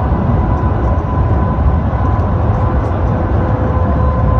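Shanghai Transrapid maglev train heard from inside the passenger cabin while moving: a loud, steady rush over a low rumble, with a thin steady whine. A second, lower whine joins about two seconds in.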